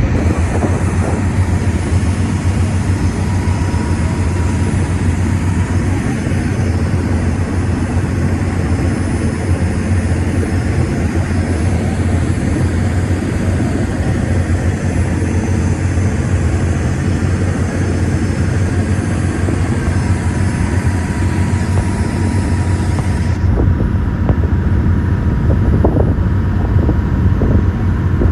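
Steady low engine drone of a moving vehicle, with wind noise on the microphone; the higher hiss drops away a few seconds before the end.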